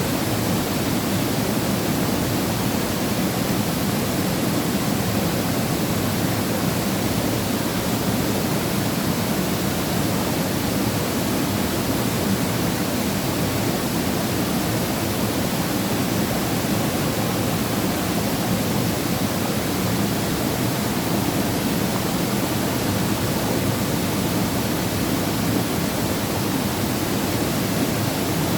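Valley waterfall rushing steadily, a constant full roar of falling water with weight in the low-mid range and no breaks.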